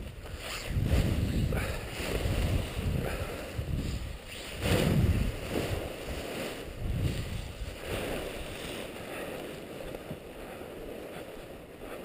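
Wind buffeting the microphone in uneven gusts, mixed with the crinkling rustle of a nylon paraglider wing being bunched up by hand; the gusts are strongest about five seconds in.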